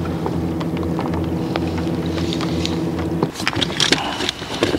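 Gladiator G9.8FHS outboard motor running at a steady low speed, then cut off abruptly about three seconds in, followed by small clicks and rustling.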